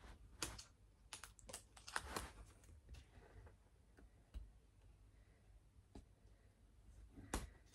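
Faint, scattered clicks and light rustling of hands handling small objects close to the microphone: a cluster of clicks in the first two seconds and one more near the end.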